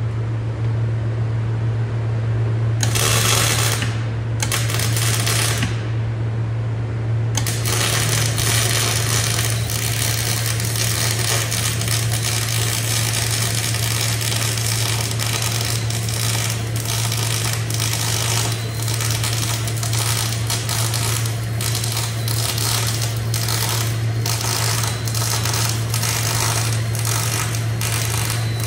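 MIG (GMAW) welding arc on steel crackling. Two short bursts of arc come a few seconds in, then a single continuous pass crackles from about seven seconds on, over a steady low hum.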